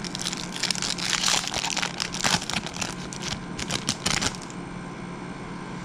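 Foil wrapper of a Topps football card pack being torn open and crinkled by hand: a crackling rustle lasting about four seconds, then stopping.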